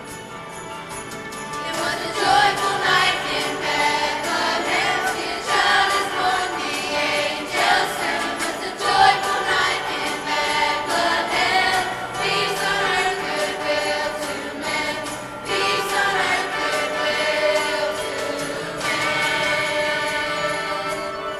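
School choir singing a Christmas song with jingle bells shaking along. The voices come in about two seconds in, after a short lead-in of bells and music.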